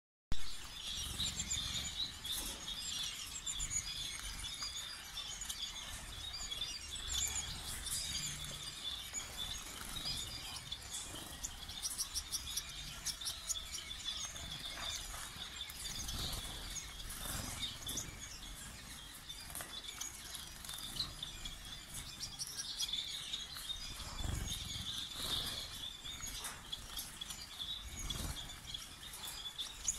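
A flock of Gouldian finches chirping and calling continuously, many short high calls overlapping, with scattered short clicks.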